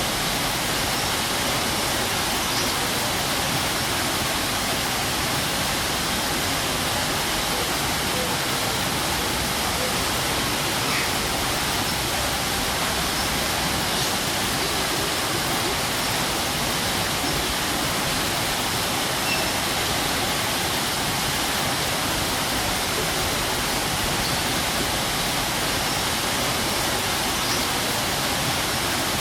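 A strong waterfall: a steady, even rush of falling water.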